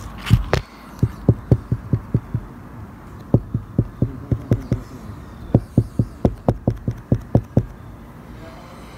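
Soft low thumps in a steady rhythm of about three to four a second, coming in three runs with short pauses between.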